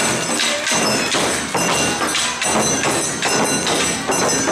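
Awa Odori festival music from a marching troupe: large shoulder-slung taiko drums beaten in a steady rhythm of about two strokes a second, with metallic ringing over the drumming.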